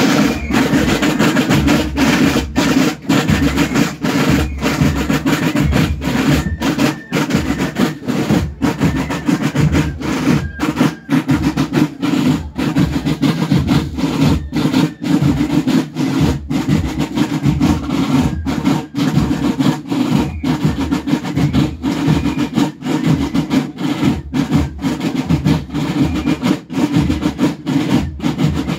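A band of rope-tension marching drums beating a steady march rhythm together, dense and loud, with evenly spaced strokes and no let-up.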